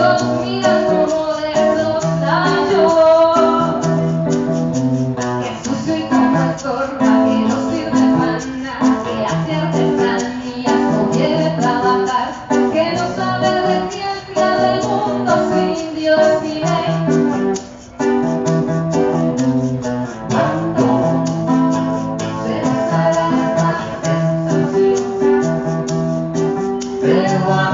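A song played live on acoustic guitar, with singing that includes a female voice.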